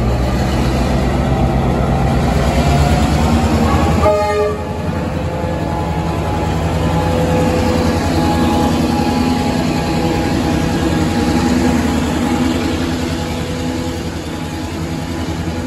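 A train running past, with several long, steady signal tones sounding over it. The sound changes sharply about four seconds in.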